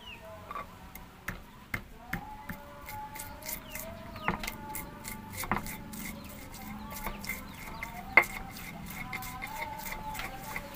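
Stone pestle pounding and grinding kencur root in a stone cobek mortar: a quick, irregular run of sharp stone-on-stone knocks, the sharpest about eight seconds in. A bird clucks in the background.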